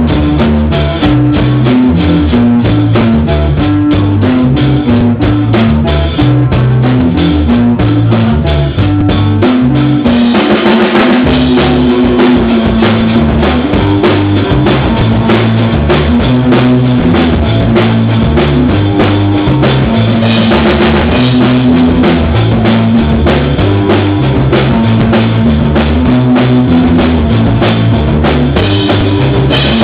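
Loud rock music with a full drum kit (bass drum, snare, rimshots) over a stepping bass line. About ten seconds in it gets fuller, with more cymbal wash.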